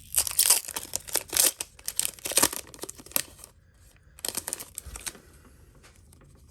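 Foil wrapper of a Pokémon booster pack being torn open and crinkled: a run of sharp crackles for about three seconds, then a few more after a short pause.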